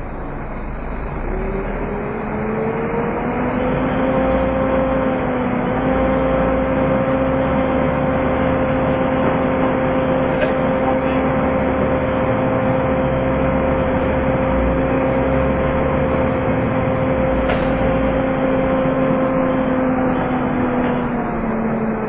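Volvo B7TL bus's engine cooling fan whining like a vacuum cleaner (the 'hoover' sound), over engine and road noise heard inside the bus. The whine rises in pitch over the first few seconds, holds steady, then falls away near the end.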